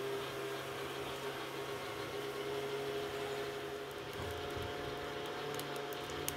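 Steady low hum with a faint hiss, with a few faint crackles near the end as the kindling catches in a clay wood-fired stove.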